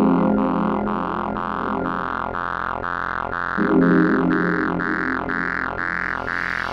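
Background electronic music: a repeating synthesizer pulse, about two and a half notes a second, with a low sustained chord swelling in and out in phrases.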